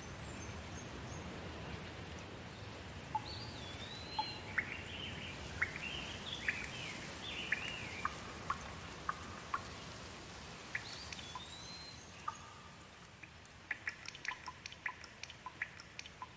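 Steady rain with birds calling over it: quick chirping notes that slide up and down, clustered in the first half and again later. Near the end the rain hiss thins and single water drops patter in quick succession.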